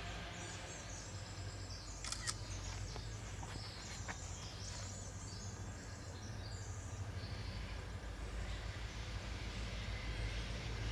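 Birds chirping and singing over a low, steady hum that slowly grows louder toward the end, with a single sharp click about two seconds in.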